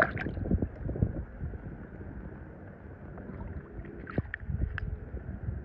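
A small die-cast toy car splashes into swimming-pool water, then the water sloshes and slaps against the tiled wall for a second or so before settling. A few light clicks near the end come from a toy car being set down on the stone pool edge.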